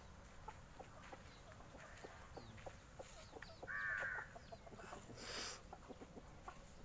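Chickens clucking faintly, with one louder call about four seconds in; a short hiss follows about a second later.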